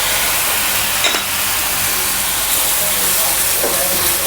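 Besan halwa sizzling hard in hot ghee in the pan as saffron water is added and stirred in, a steady loud hiss. A single spoon knock sounds about a second in.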